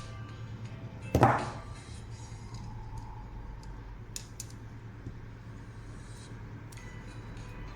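Faint background music, broken about a second in by one loud sharp hit with a brief ringing tail, then a few light clicks.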